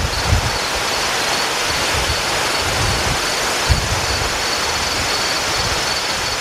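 Steady rushing noise of wind and rain outdoors, with occasional low gusts buffeting the microphone.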